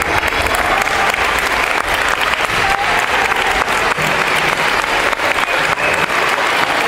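Audience applauding steadily: dense clapping from many hands, with a few voices faintly audible above it.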